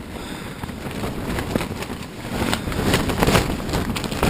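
Strong windstorm gusts buffeting a tent, the fabric flapping and rattling, with a gust building louder from about two and a half seconds in.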